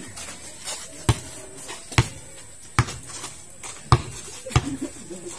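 Basketball being dribbled on a hard court: five sharp single bounces spaced a little under a second apart.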